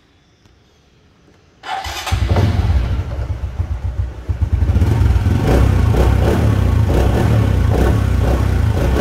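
A 2006 Honda Future Neo's single-cylinder four-stroke engine is started about two seconds in. It runs unevenly for a couple of seconds, then settles into a steady idle that sounds solid ('chắc'), which the seller takes for a sign of an engine in good health.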